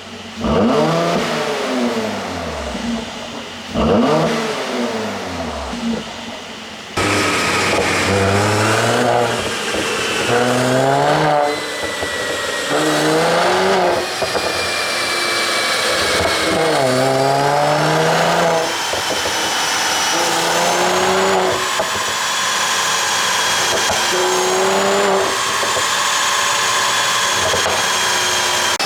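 Mercedes-AMG C43's twin-turbo V6 with a pop-and-crackle exhaust tune: two sharp rev blips, then a long hard acceleration, the revs climbing and dropping back at each upshift every second or two.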